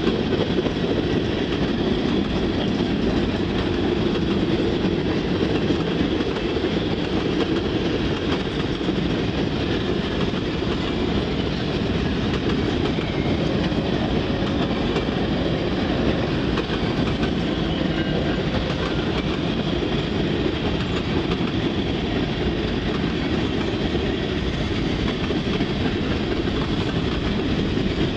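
Cars of a CSX mixed freight train, empty centerbeam flatcars and boxcars among them, rolling past: a steady, unbroken noise of steel wheels running over the rails, with no engine or horn heard.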